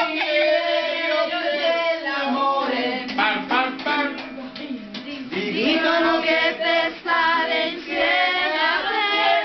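A man singing two long, wavering phrases while strumming a small acoustic guitar.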